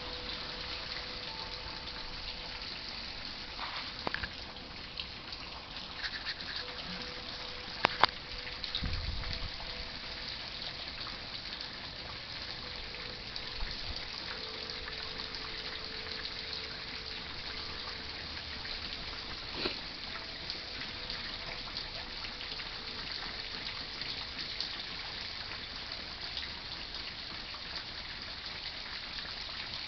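Steady hard rain hissing, with wind chimes ringing faintly in long-held tones. A few sharp clicks stand out, the loudest about eight seconds in, followed by a low thump.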